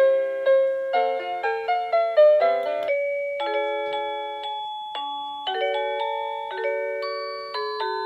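Byron DBY-22311 wireless doorbell chime unit playing its electronic chime melodies. A quick run of short notes gives way, about three seconds in, to slower, held bell-like notes.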